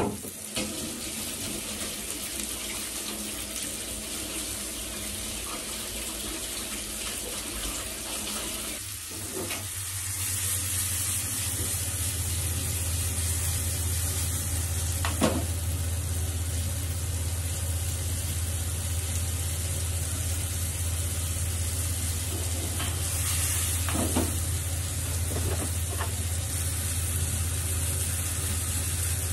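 Flour-dusted persimmon slices sizzling in olive oil in a frying pan over medium heat: a steady frying hiss. A steady low hum comes in about ten seconds in, and there are a few light knocks.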